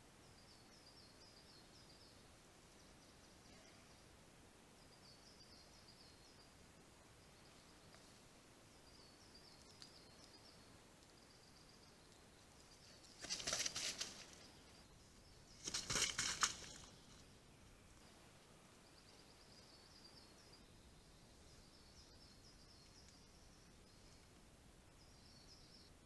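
A bear moving at a bait site: two short, loud rustling noises about two and a half seconds apart near the middle, over a faint high chirp that repeats every couple of seconds.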